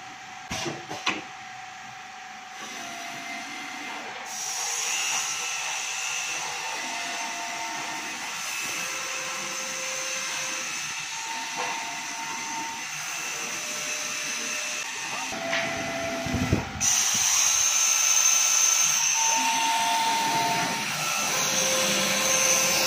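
CNC carpet cutting machine running: a steady hiss with short motor whines that change pitch from moment to moment as the gantry and cutting head move. There are a few clicks about half a second in, and it is louder in the last few seconds.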